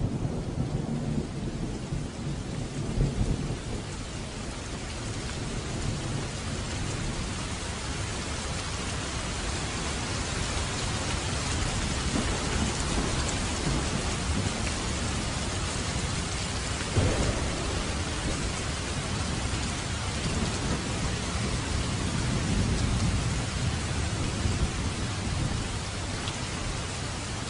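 Heavy rain pouring steadily onto asphalt and tree leaves, with low thunder rumbling underneath and one sharper peak about two-thirds of the way through.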